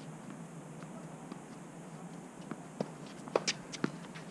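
Tennis rally on an outdoor hard court: after a couple of quiet seconds, a few short sharp taps of the ball bouncing and footwork, then a loud single pop of a racket striking the ball right at the end.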